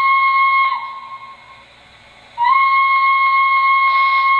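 Steam whistle sound effect from an MTH O-scale EST 241A model locomotive's onboard sound system, a high-pitched shrill European-style whistle. It gives two blasts. The first ends under a second in, sagging in pitch as it cuts off. The second starts about two and a half seconds in, and there is a brief hiss near the end.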